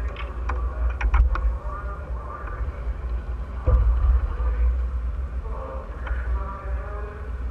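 Steady low rumble with muffled, indistinct voices coming and going, a few light clicks about a second in and a single louder knock a little before the halfway point.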